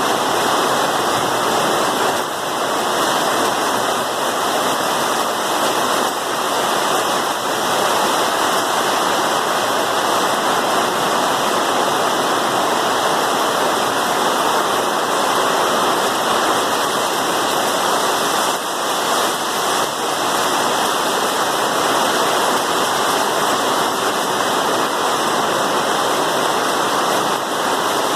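Heavy rain pouring down in a loud, steady rush of water.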